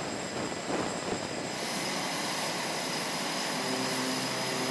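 F/A-18 jet engines running on a carrier flight deck: a steady, even noise, joined about a second and a half in by a high, thin whine that holds.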